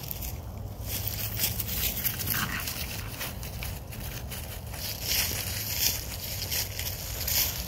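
Dry fallen leaves rustling and crunching irregularly as a puppy scampers and plays through them.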